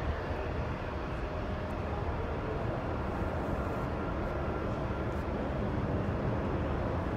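Jet airliner engines heard from a distance, a steady low rumble.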